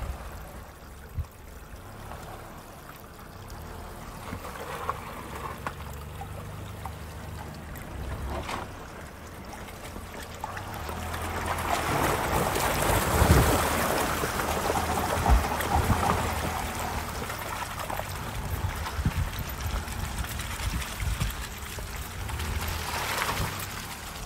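A Lexus ES on snow chains driving through liquid mud and slush: the engine's low running hum, with the chained wheels churning and splashing through water and mud. The splashing grows loud about halfway through, with scattered thumps.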